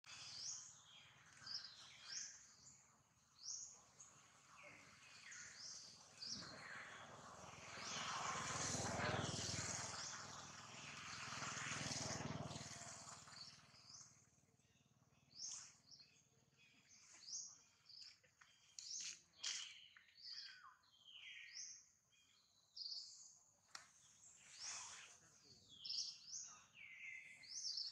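Faint outdoor ambience of small birds chirping and whistling in short, quick calls throughout. A broad rushing noise swells up about six seconds in and fades away again after about seven seconds, the loudest thing heard.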